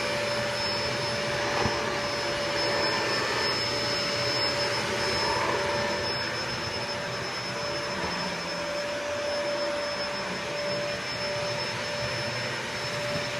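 Eureka Optima vacuum cleaner running steadily over carpet, its motor giving a constant rushing of air with a steady whine.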